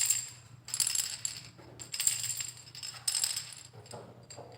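Montessori sound-box cylinders being shaken one after another, the filling inside each rattling in about four short bursts. The cylinders are being compared to find the softest of a graded set.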